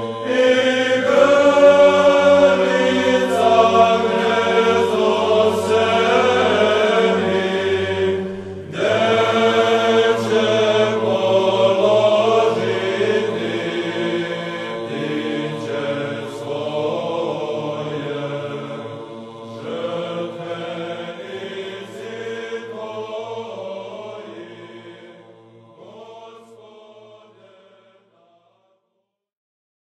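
Background music: a choir chanting over a low held drone note, with a short break about eight and a half seconds in, fading out near the end.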